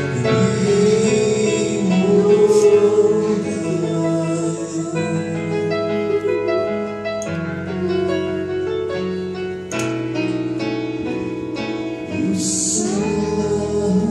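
A man singing into a microphone, holding long notes that bend in pitch, accompanied by an electric keyboard playing sustained chords.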